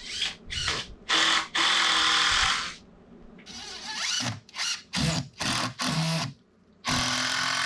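Power drill driving screws into framing lumber in a series of trigger bursts: several short spurts, a run of about a second, a cluster of quick pulses, then a longer steady run starting about seven seconds in.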